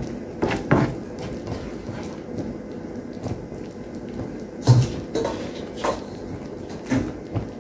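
Barbecue sauce simmering in a pan as it reduces, with a utensil knocking and scraping against the pan several times.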